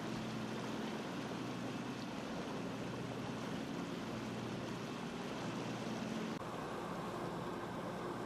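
A ship's engine running steadily: a low hum over a rushing noise, changing abruptly about six seconds in.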